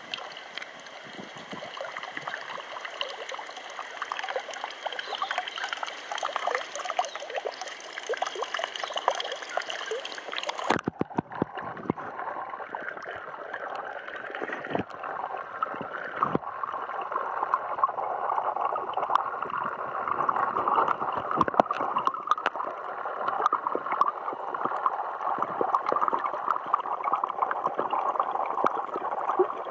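Water trickling and splashing into a trout-rearing tank from an inflow pipe. About eleven seconds in, the microphone goes under the surface and the sound turns muffled and gurgling.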